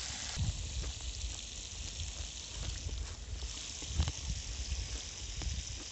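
Small lambari frying in a pot of oil over a wood fire: a steady sizzling hiss with scattered faint crackles, over a low wind rumble on the microphone.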